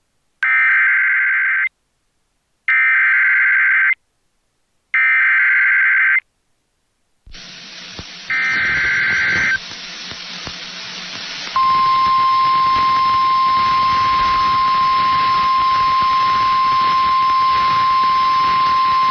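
Emergency Alert System SAME header: three loud bursts of warbling digital data tones, each about a second long, then a hiss and a fourth burst over it. About eleven and a half seconds in, the steady single-pitch NOAA Weather Radio 1050 Hz alert tone starts and holds over the hiss, announcing a severe thunderstorm warning.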